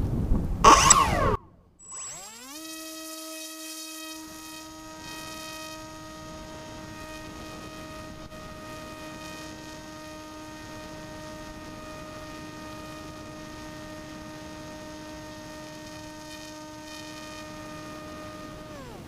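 Electric motor and propeller of a 47-inch FPV flying wing, heard from its onboard camera: a whine that rises as the motor spins up about two seconds in, holds one steady pitch, then drops just before the end. Before it, a loud rush of noise in the first second and a half.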